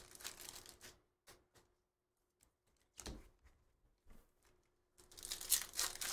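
Foil trading-card pack wrappers crinkling and tearing as packs are handled and ripped open. It comes in bursts: one at the start, a short one about three seconds in, and a louder run about five seconds in.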